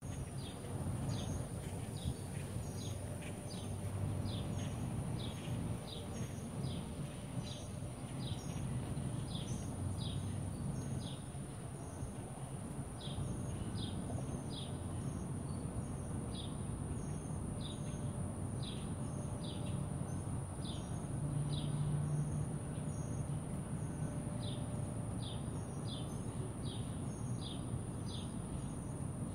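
Outdoor ambience: a small bird repeating short, high, falling chirps about one or two a second, with a few short pauses, over a steady thin high-pitched tone and a low background rumble.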